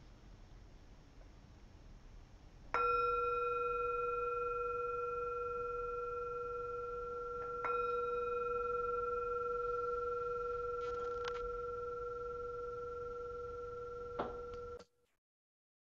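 Meditation bell bowl struck twice, about five seconds apart, each strike ringing on in a long, slowly fading tone with a low note and higher overtones. It sounds the close of a silent meditation period. The ringing stops abruptly near the end.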